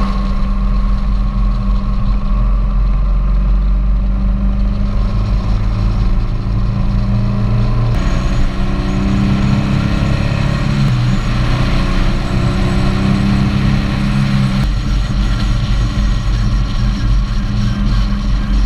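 Engine of a vehicle running under way on a climbing mountain road, heard onboard with wind and road noise on the microphone. The engine pitch rises and falls through the middle of the stretch. The sound changes abruptly about eight seconds in and again near fifteen seconds.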